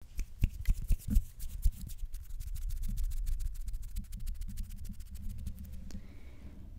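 Fingers fluttering and brushing close against a microphone: a dense run of fine crackling clicks over a low rumble of handling noise. A few louder taps come in the first two seconds, and the clicks thin out near the end.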